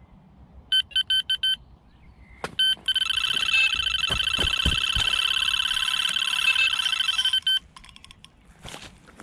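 Electronic carp bite alarm sounding: five quick single beeps, then from about three seconds in a continuous, fast-pulsing high tone for about four and a half seconds. This is a carp taking line on a run.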